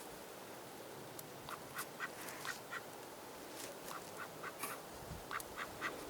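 Ducks quacking softly: a scatter of short, faint calls, roughly two or three a second, over a quiet hiss.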